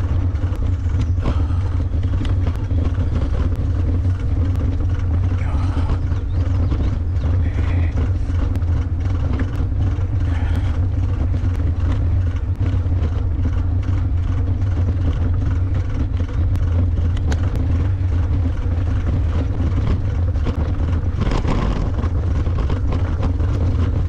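Steady low rumble of an eBike riding over a mown grass trail, with small rattles and clicks scattered throughout.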